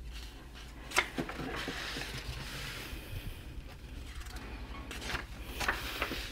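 Paper pages of a spiral-bound workbook being turned and handled: a soft rustle with a few sharp paper flicks, one about a second in and a couple more near the end.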